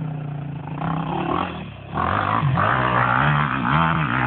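Quad (ATV) engine running steadily, then revving up louder about two seconds in, its pitch rising and falling with the throttle.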